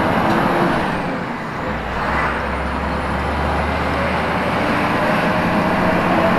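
A 480-horsepower lorry's diesel engine running under way, heard from inside the cab while pulling a loaded trailer. There is a steady low drone, with a brief dip in level about a second and a half in.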